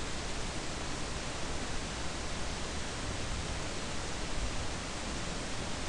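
Steady, even hiss of recording background noise, with no other distinct sound.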